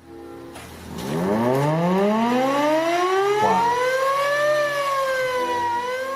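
Outdoor warning siren winding up, several tones sounding together and rising steadily in pitch. It peaks about four and a half seconds in, falls briefly, then starts rising again near the end.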